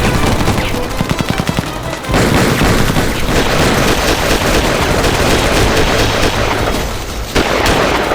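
Rapid automatic gunfire: a fast rattle of shots for about two seconds, then heavier, denser firing that runs on.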